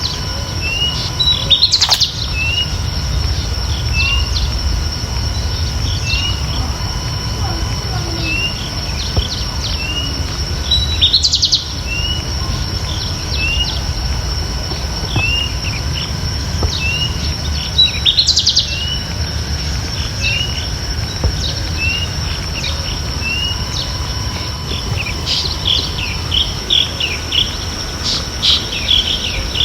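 Bird chirping soundtrack: small birds calling, with a short rising chirp repeated about once a second and a fuller, quickly trilled phrase three times, over a steady high-pitched insect drone and a low background rumble.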